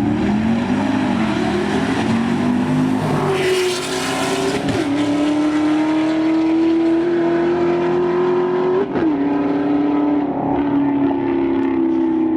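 Car engine revving hard at high rpm, its pitch climbing slowly and then dropping sharply twice in the second half, with a rush of noise about three seconds in.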